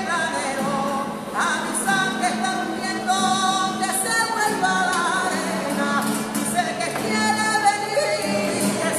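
Voices singing a rociero song in a flamenco style, the melody carried on without a break.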